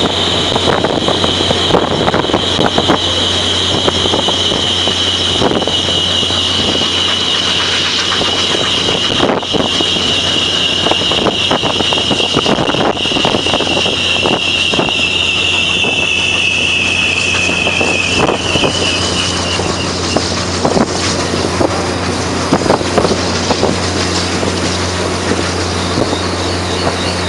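Passenger train riding at speed, heard from an open car window: a steady rumble and wind on the microphone, with scattered clicks from the wheels on the rails. A long, high, metallic squeal from the train slowly falls in pitch and stops about two-thirds of the way through.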